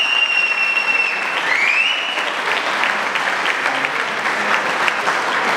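Audience applauding, dense steady clapping. A high whistle sounds over it in the first two seconds, rising in pitch once before it stops.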